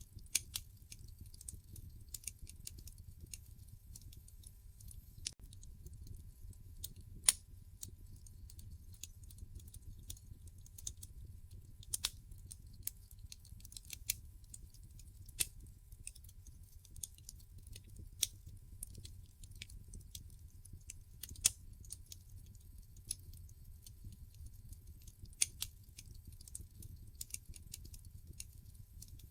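Wood fire crackling in a fireplace: sharp, irregular pops and snaps, a few of them louder, over a low steady rumble.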